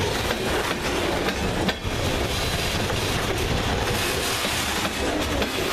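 Covered hopper cars of a freight train rolling past close by: a steady rumble of steel wheels on rail, with light clicks as the wheels pass over the joints.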